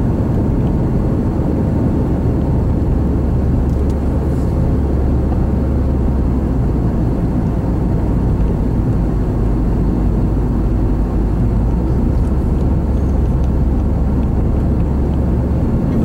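Steady engine and tyre rumble of a car driving at speed, heard from inside the cabin.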